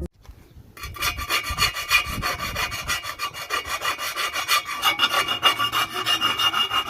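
Sheet-metal engine windage tray being cut with a saw: a fast, uneven run of rasping strokes with a steady ringing note from the metal, starting about a second in.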